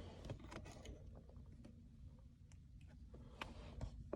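Faint, scattered clicks and light knocks as the shift knob is handled and slid down onto the manual shifter lever, with a few sharper clicks near the end.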